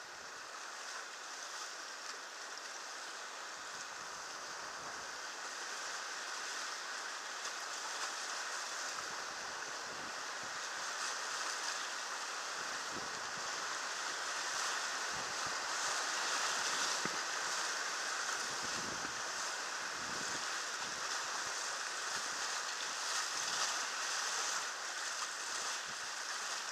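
Whitewater rapid rushing around an inflatable raft, a steady noise of churning water that grows louder towards the middle and stays loud. Occasional low thumps come through in the middle stretch.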